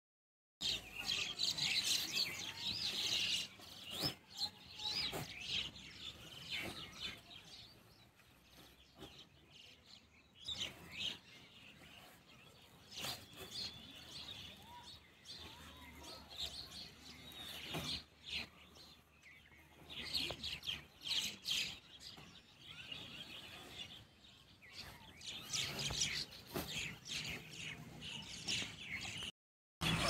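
Birds chirping and twittering, with a few faint knocks in between.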